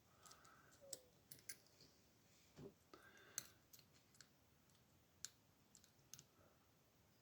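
Faint, irregular clicks of a lock pick working the pins inside a brass Assa Abloy Union padlock.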